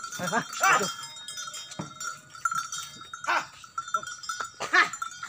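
Bells on a team of draught cattle ringing steadily as they haul a loaded cart uphill, with a few short calls, one near the start and two more later.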